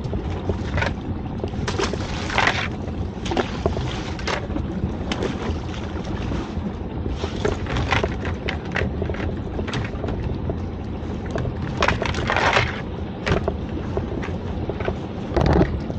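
Knocks and clattering as a lobster pot is handled on the side of a small boat, over a steady low rumble, with two longer swishing noises about two and a half seconds in and near twelve seconds.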